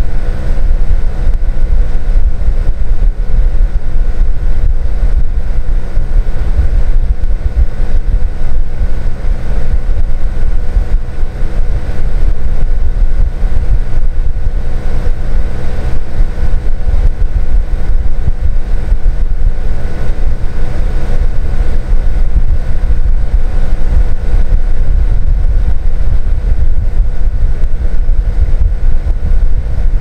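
Hitachi air-conditioner outdoor unit running: a steady mechanical hum made of several constant tones over a heavy low rumble.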